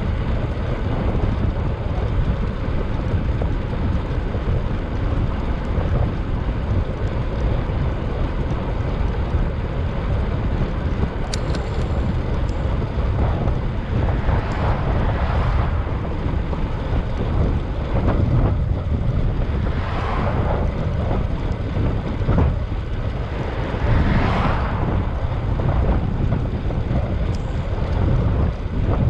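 Wind rushing over the microphone of a bicycle in motion, a steady low rumbling noise, with a few brief swells of brighter hiss in the second half.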